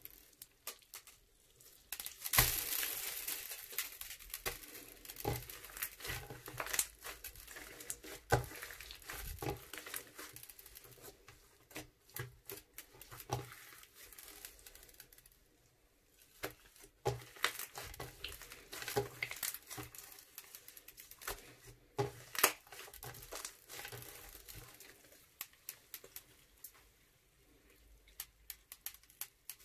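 Crunchy slime being squeezed and worked by hand, giving dense, irregular crackles and pops with a crinkling quality, loudest about two seconds in and again near the twenty-two-second mark.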